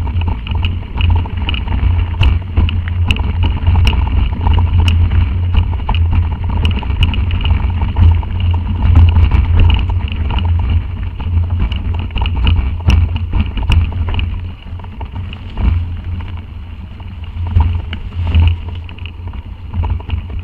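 Mountain bike descending a rough dirt trail at speed: a steady rumble of wind on the bike-mounted camera's microphone, with the bike's rattle and sharp knocks and clicks as it jolts over the ground.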